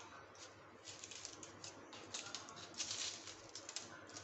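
A knife sawing through the crust of a round Afghan sweet bread, giving a run of faint, crisp crackles and scrapes that are densest and loudest about three seconds in.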